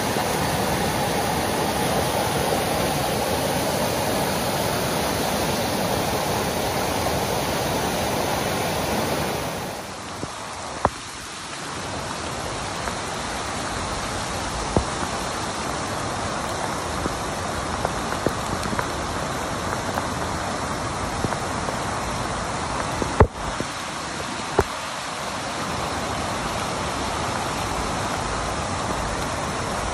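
Fast-flowing floodwater rushing steadily. About ten seconds in the sound shifts abruptly to a slightly quieter stretch of flowing water and rain, with a few sharp taps.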